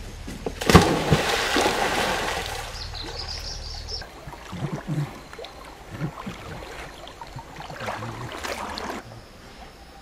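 Water splashing hard about a second in, then softer sloshing and gurgling as a goat swims through a river.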